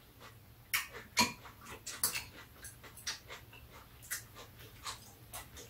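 Metal spoons and chopsticks clicking and scraping against ceramic bowls during a meal: a string of short, irregular clinks.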